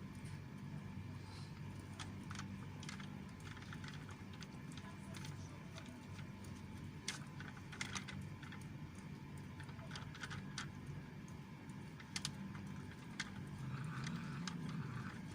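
Stray cat eating noisily: irregular crunching clicks of chewing over a low, rough rumble that grows stronger near the end.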